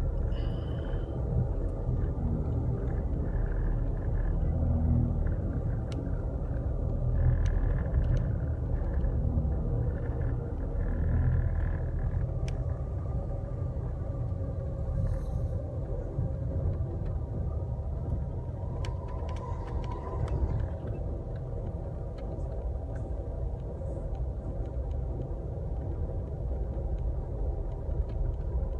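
Steady low rumble of a moving vehicle heard from inside its cabin, with a few faint clicks and brief higher tones now and then.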